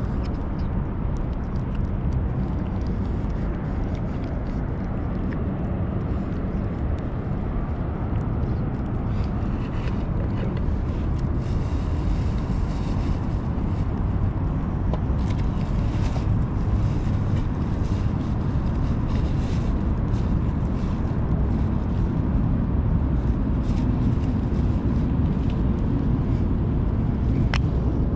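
Steady low rumble of outdoor background noise, a little louder in the second half.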